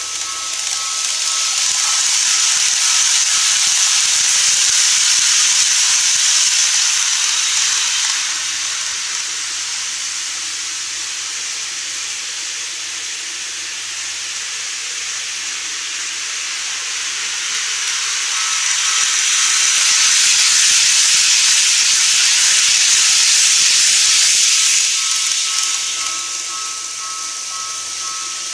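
N-gauge model electric trains running on the track: a high, steady hiss of wheels and motors that swells twice, first in the opening seconds and again past the middle, as trains pass close to the microphone, then falls back.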